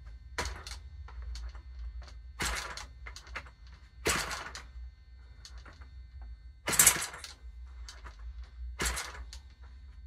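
Model aircraft engine being hand-flicked by its propeller. About five short, sharp bursts come roughly every two seconds as the engine kicks over without catching, with faint clicks between them.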